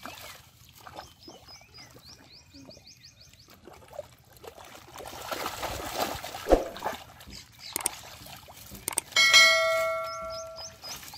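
Wet mud sloshing and squelching as bare hands dig through shallow, duckweed-covered mud, with a sharp splash past the middle. A small bird chirps in quick repeated notes. Near the end a loud bell-like ding rings out and fades away.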